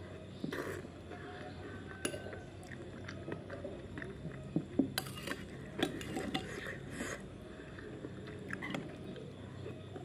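Metal spoon clinking and scraping against a ceramic soup plate, with a few sharp clinks, and chewing between spoonfuls.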